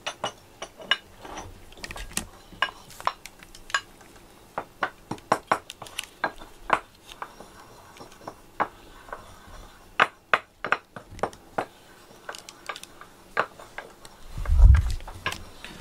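Irregular sharp clicks and taps of utensils against a dish, a few to several per second, with a heavier dull thump near the end.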